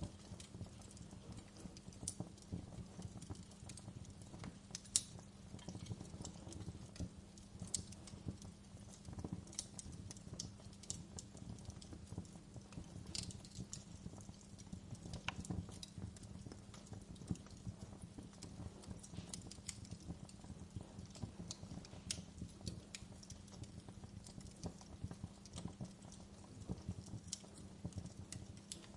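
Wood fire in a fireplace crackling: irregular small pops and snaps over a steady low rumble, with one louder pop about five seconds in.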